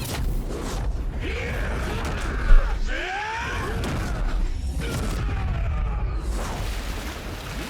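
Sound-designed anime fight effects: a continuous low rumble under sweeping glides and whooshes, with one sharp, loud impact about two and a half seconds in.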